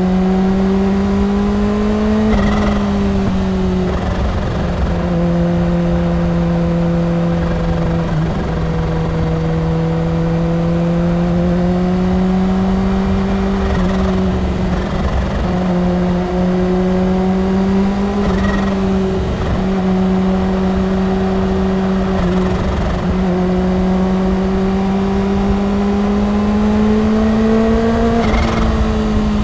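Kawasaki Ninja H2's supercharged inline-four engine pulling at steady highway speed. Its pitch climbs slowly and eases back a few times as the throttle is rolled off and on. Wind rush runs underneath.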